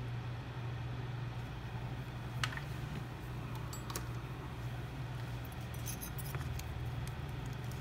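Steady low hum at the repair bench, with a few faint, light clicks of small metal tools such as tweezers and a soldering tip touching the phone's circuit board.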